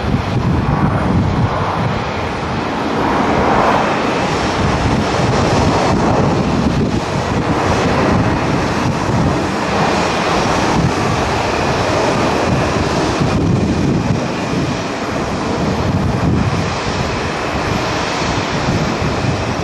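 Japan Airlines Boeing 767's twin jet engines at takeoff power, a steady loud rush through the takeoff roll and climb-out, with wind buffeting the microphone.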